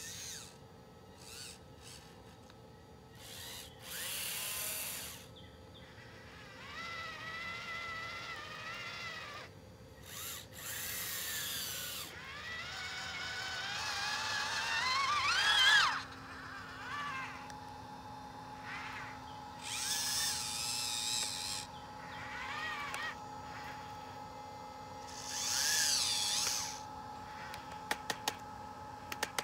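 Small electric track motors and servos of a radio-controlled track loader whirring in short runs as it moves over dirt. One run climbs steeply in pitch to the loudest point about halfway through, and a few sharp clicks come near the end.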